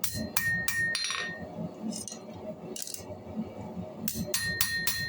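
Hand hammer striking steel on an anvil while forging an old suspension spring, each blow leaving a clear metallic ring. A quick run of three or four strikes comes at the start, then a few scattered blows, then another quick run of strikes about four seconds in.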